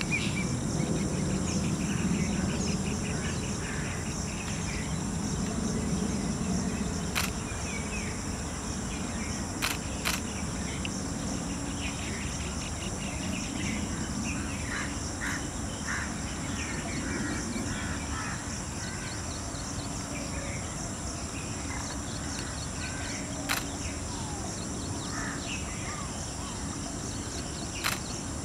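Woodland ambience: a steady high drone of insects with scattered bird chirps and a few sharp clicks.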